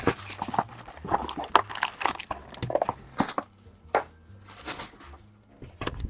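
Trading card box and packaging being handled on a table: irregular light taps, clicks and rustles as a card box and pack are opened.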